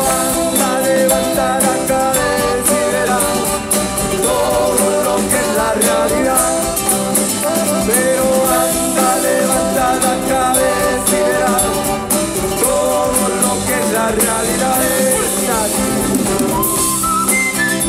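Live band playing an instrumental passage, with acoustic guitar, trumpets and saxophone over a steady rhythm.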